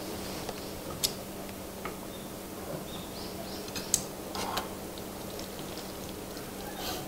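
Metal tongs and chopsticks clinking against ceramic plates and bowls while saucy instant black bean noodles are lifted and served, with sharp clinks about one second in and near four seconds in, over a steady low hum.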